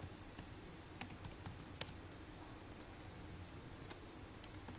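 Faint typing on a computer keyboard: scattered, irregular key clicks as a word is typed.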